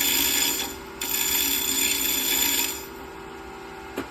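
Bench grinder running while its wheel is dressed, the dressing tool pressed against the spinning wheel: a loud, harsh grinding hiss in two stretches, broken briefly about a second in and stopping near three seconds. After that only the grinder motor's steady hum remains, with a short click near the end.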